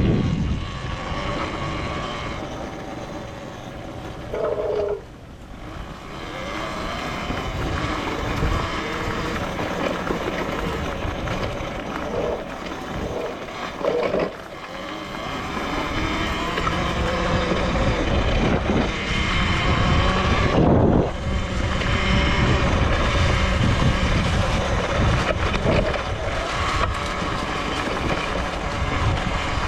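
Talaria Sting R electric dirt bike being ridden: wind and road noise with a drivetrain whine that rises and falls with speed, easing off briefly twice. Two short higher tones, about five and fourteen seconds in.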